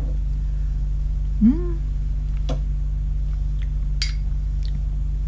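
A steady low electrical hum, with a short rising "mm" from a voice about one and a half seconds in. A few light clicks come from a metal teaspoon against a glass coffee mug, the sharpest about four seconds in.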